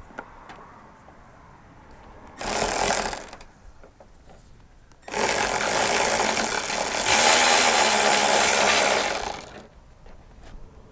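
Battery-powered ratchet with a 10 mm deep socket on a long extension, spinning out the hidden third bolt behind the headlight: a short run of about a second, then a longer run of about four and a half seconds that gets louder about two seconds in.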